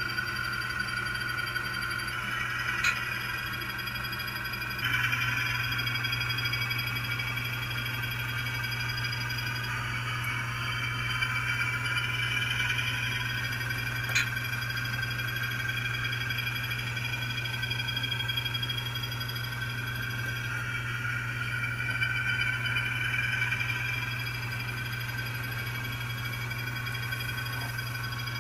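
HO-scale model diesel locomotive running with a train of freight cars: a steady motor whine that drifts slightly in pitch and loudness, with a steady low hum beneath and two sharp clicks, about three and fourteen seconds in.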